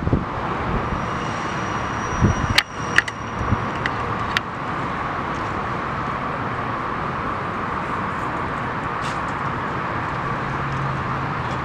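Steady outdoor background noise with no engine running, broken by a few sharp clicks and knocks between about two and four and a half seconds in.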